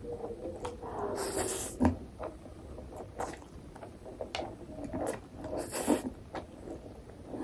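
Close-up eating sounds of a person chewing, with small wet mouth clicks and two longer slurps, one about a second in and one near six seconds.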